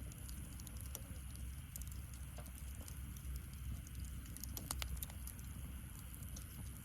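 Wood fire in a fire-pit stand crackling, with irregular sharp pops and ticks, several close together about five seconds in, over a steady low rumble.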